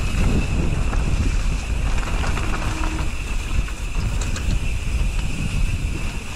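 Wind buffeting a GoPro microphone on a moving mountain bike, a dense, unsteady low rumble with a few faint clicks.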